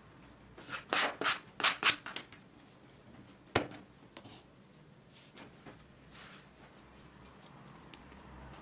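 Dough being kneaded by hand on a wooden tabletop: a quick run of five or six slaps and thumps about a second in, one sharper knock a little later, then quieter rubbing and pressing.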